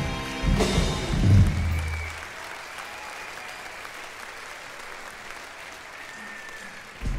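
Music ends about two seconds in, then a large audience applauds steadily; new music starts right at the end.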